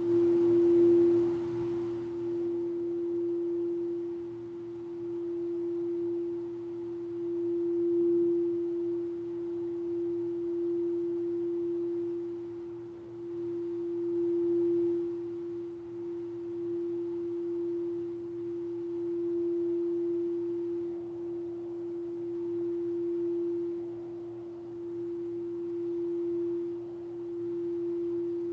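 Singing bowl sounding one long, pure, steady tone that swells and eases every few seconds. A second, lower tone dies away in the first few seconds.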